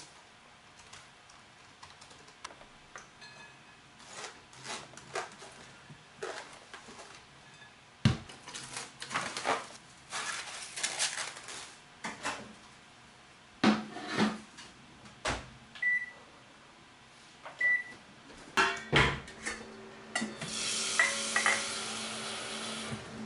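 Kitchen handling sounds: scattered knocks and clatter of utensils and dishes, then two short electronic beeps from a microwave oven's keypad. The microwave hums steadily after that, and near the end tap water rushes into a metal pot.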